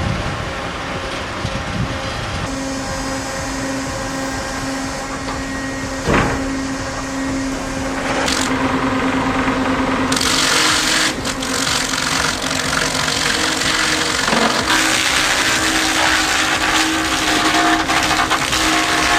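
Heavy engines running steadily, with a sharp knock about six seconds in; from about ten seconds on the sound grows louder and noisier.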